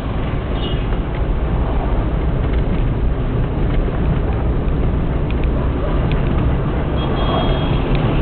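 Steady low rumble of a vehicle on the move: engine, tyre and wind noise. A brief high-pitched tone sounds near the end.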